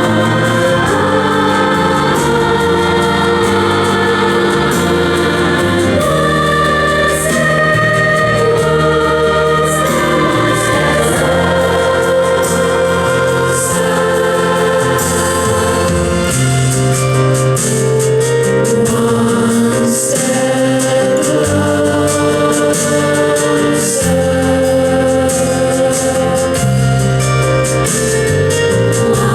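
Music: a choir singing sustained chords over an organ-like accompaniment.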